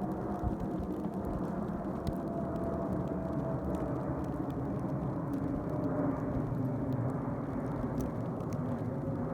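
Jet airliner passing with its engines running: a steady rumble with a faint tone that slowly falls in pitch.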